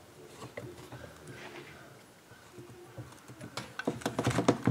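Light metallic clicks and taps of a T-handle driver and screws against the cylinder of a Stihl MS 391 chainsaw engine as the cylinder screws are run in by hand. Only faint handling sounds at first, then from about three and a half seconds in the clicks come quicker and louder.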